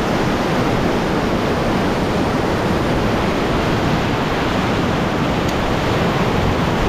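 River rapids rushing steadily: an even, unbroken wash of moving whitewater.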